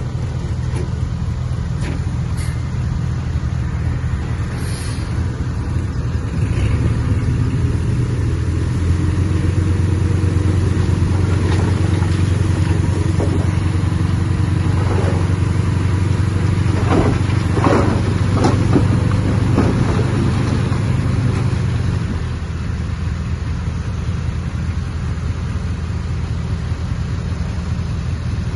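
Heavy earthmoving machine's diesel engine running under load, a steady drone that grows louder about six seconds in and eases off a few seconds before the end, with some clattering and scraping in the middle.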